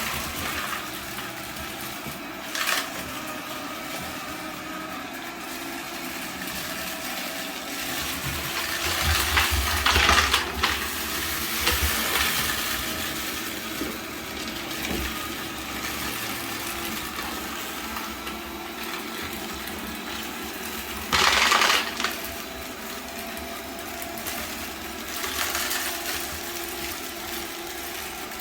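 Deenkee DK650 robot vacuum running, its motor and brushes humming steadily while dry dog food kibble rattles as it is swept up and sucked in. Louder bursts of rattling come about a third of the way in and again about three quarters through.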